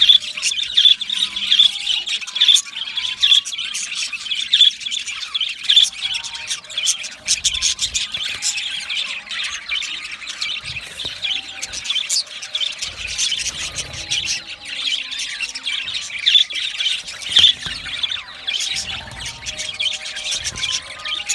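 Budgerigars chattering without a break: a dense, fast mix of warbling, chirps, clicks and harsh squawks.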